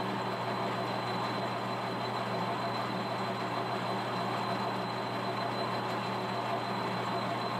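Metal lathe running steadily, a constant machine hum and whir with no change in pitch.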